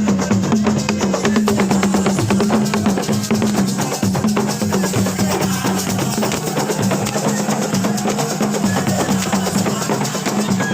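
Loud, drum-heavy music with rapid percussion strokes over a steady low drone.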